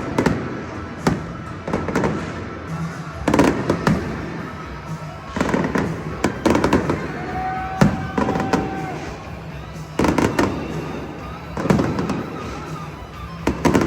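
Fireworks going off: a series of sharp bangs and booms at irregular gaps of one to two seconds, each trailing off in a rumble. A brief steady whistling tone sounds a little past halfway.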